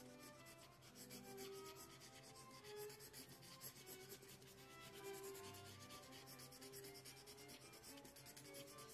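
Faint, quick, repeated scratching of a 2 mm mechanical pencil with 2B lead making short strokes on sketch paper. Soft background music plays underneath.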